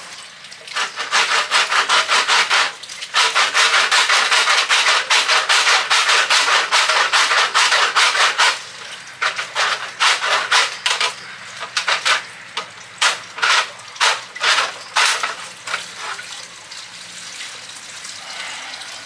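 Hand saw cutting through a water pipe in quick back-and-forth strokes. The sawing runs steadily for several seconds, then breaks into slower separate strokes and dies away near the end.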